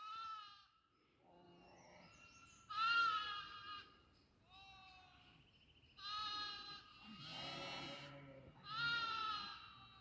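Goats bleating over and over: about six separate calls of varying pitch and loudness, the loudest about three seconds in.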